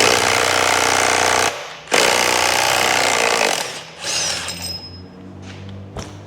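Impact wrench hammering in two loud bursts of about a second and a half each, undoing a 15 mm drive pulley bolt. A quieter rattle follows, then a single click near the end.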